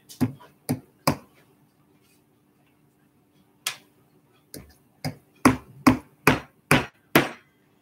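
Small claw hammer tapping a tiny nail into a wooden part: three light taps, a pause of a couple of seconds, then a steadier run of about eight taps, roughly two a second.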